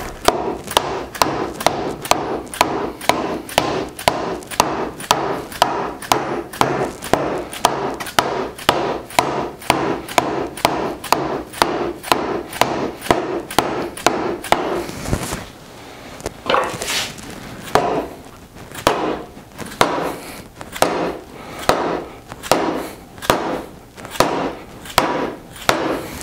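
Hammer blows on wood driving a tenon down into its mortise: rapid, even strikes about two a second, a short pause about halfway, then slower strikes about one a second.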